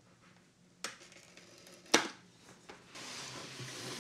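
Large cardboard box being handled on a wooden table: two sharp knocks about a second apart, the second louder, then a steady scraping rustle from about three seconds in as the box is slid and turned.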